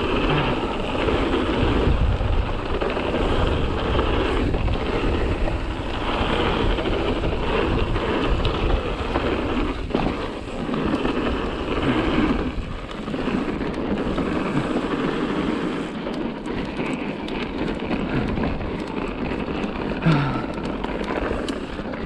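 Mountain bike ridden at speed down a dirt trail: continuous tyre and trail noise from the bike rolling over the ground, swelling and easing with the terrain, mixed with wind rushing over the microphone.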